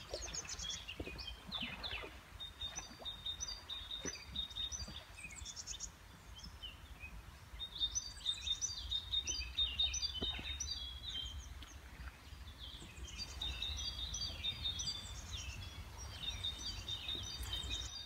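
Songbirds singing in repeated phrases of quick, high notes that come and go, over a low steady rumble.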